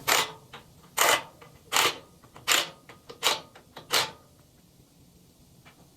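Six sharp knocks, evenly spaced about three-quarters of a second apart, stopping about four seconds in.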